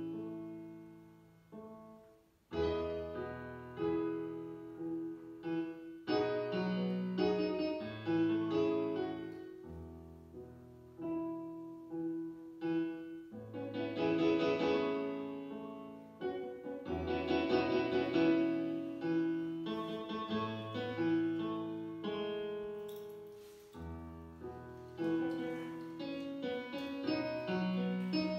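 Solo piano playing on a digital keyboard: sustained chords under a melody, notes struck and left to ring and fade, with a brief gap about two seconds in before the chords resume.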